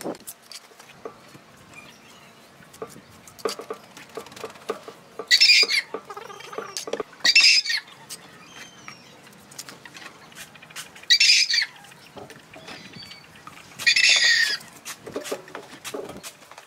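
Steel mason's trowel spreading and scraping wet cement mortar over a brick hood. There are four loud scraping strokes of about half a second each, with light taps and clicks of the trowel between them.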